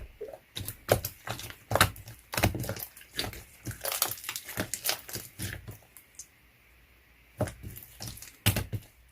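Slime being squished and poked by hand, giving a quick, irregular run of sticky clicks and crackling pops. The clicking stops for about a second around the middle, then starts again.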